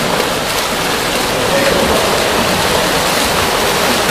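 Steady splashing of several water polo players swimming front crawl in an indoor pool.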